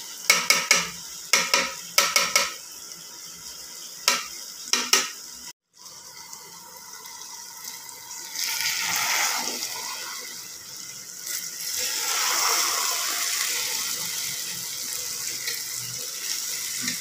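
Metal ladle clinking and scraping against a metal cooking pot while okra and chicken are stirred, a quick run of sharp knocks over the first five seconds. After a brief dropout, the frying okra and chicken sizzle steadily, swelling louder twice.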